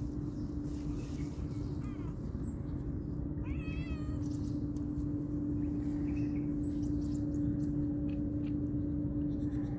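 Tabby kitten meowing: a faint short meow about two seconds in, then a louder, wavering meow about four seconds in. A steady low hum runs underneath.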